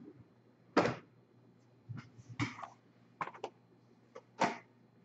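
A string of short, sharp knocks, clicks and rustles at irregular intervals, the loudest about a second in: trading-card boxes and plastic card holders being handled and set down on a table.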